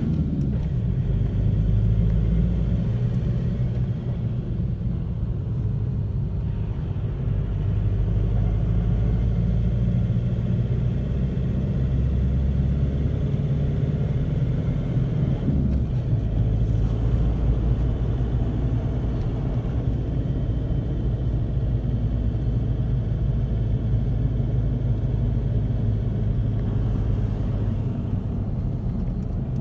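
Car's engine and tyre noise heard from inside the cabin while driving: a steady low rumble with a faint engine hum, whose note shifts about halfway through.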